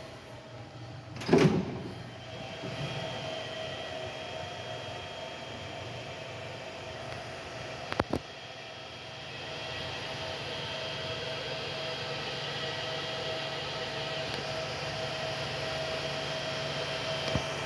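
Niles ZE 630 CNC gear grinding machine running: a steady mechanical hum with a high whine, broken by a loud knock about a second in and a sharp click about eight seconds in.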